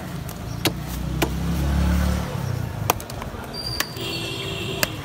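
Street noise: a motor vehicle passes with a low engine rumble that swells and fades over the first two seconds, over several sharp clicks, and a brief high-pitched tone sounds about four seconds in.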